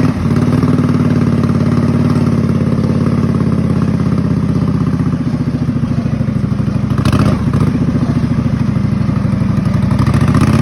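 Kohler Command V-twin engine of a racing riding mower running steadily under load while driving in third gear, its revs climbing near the end.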